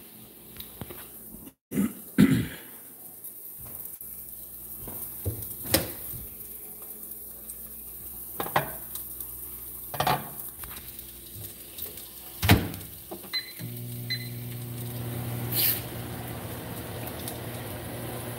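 Handling noise from a handheld phone being moved about: scattered knocks and clicks, the loudest about two seconds in and about twelve seconds in. A little past thirteen seconds come two short high beeps, and a steady low hum starts and keeps going.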